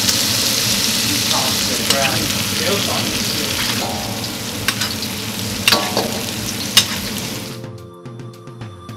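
Ribeye steaks sizzling hard in butter in a cast-iron skillet as they are seared and basted, with a few sharp clicks in the second half. The sizzling cuts off suddenly after about seven and a half seconds and soft music comes in.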